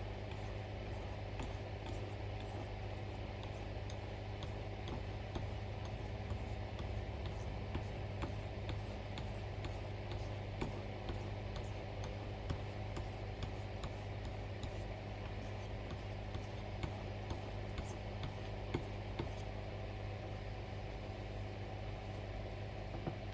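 Knife blade being stroked along a fine whetstone, giving light, irregular ticks at the edge's contact with the stone, over a steady low hum.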